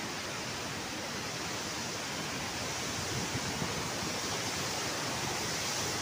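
Water rushing steadily over a stepped concrete weir, the overflow of a village pond cascading down its steps. A continuous rushing that grows slightly louder toward the end.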